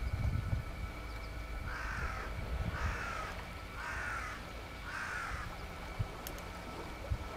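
A crow cawing four times, about a second apart, each caw harsh and slightly falling in pitch.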